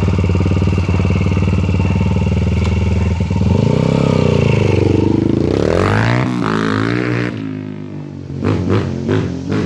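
Yamaha TT-R pit bike's single-cylinder four-stroke, bored out to about 150 cc and fitted with an FMF 4.1 full exhaust, idling steadily. It is then revved up and back down twice, and the engine cuts off a little after seven seconds in, followed by a few short sounds near the end.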